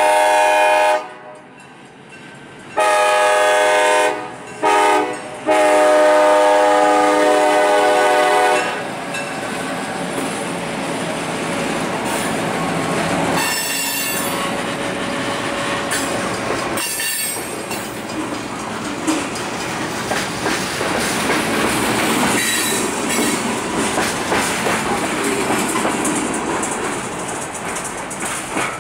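EMD GP10 diesel locomotive's air horn sounding the grade-crossing signal: two long blasts, a short one, and a final long blast. The locomotives and freight cars then roll past, wheels clicking over the rail joints, with a couple of brief high wheel squeals.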